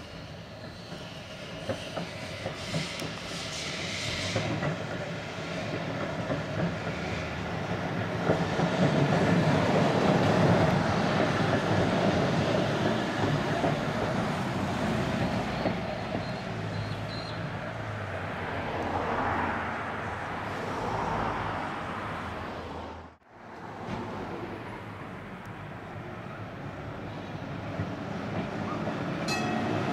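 Vintage electric tram running on street track, its wheels rumbling on the rails. It grows louder as it draws near and is loudest as it passes close, about ten seconds in, with a car driving by at the same time. The sound drops out briefly about two-thirds of the way through, then the tram is heard again, building toward the end.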